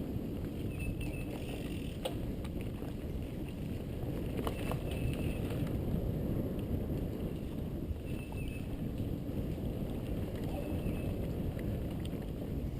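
Mountain bike riding a dirt singletrack: a steady rumble of tyres on the trail and wind on the microphone, with a few sharp clicks and rattles from the bike.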